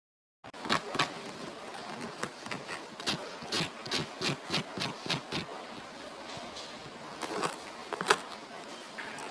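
A knife sawing through the crisp fried breadcrumb crust of a banana fritter, giving a run of crunchy crackles, about three or four a second in the middle, with the loudest crack about eight seconds in.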